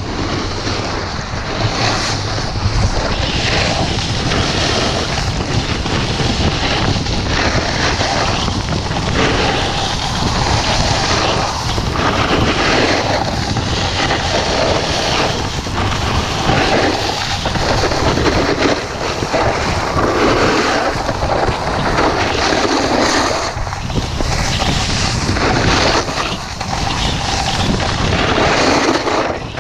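Snowboard edge scraping and hissing over snow in repeated swells as it carves turns, with wind rushing over the microphone.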